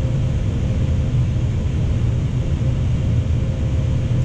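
Steady flight-deck noise of an Airbus A320 on final approach: a constant low rumble with a faint steady hum above it.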